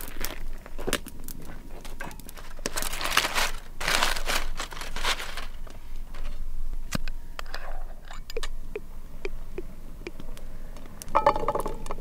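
Aluminium foil crinkling and tearing as a foil packet is peeled open. The two longest rustles come a few seconds in, followed by scattered small clicks and a brief ringing clink near the end.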